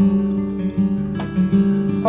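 Instrumental background music played on acoustic guitar, plucked notes over held chords.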